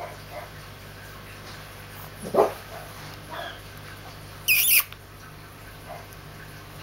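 A young French bulldog puppy giving two short yelps: a low one about two seconds in, and a higher, sharper squeal a couple of seconds later.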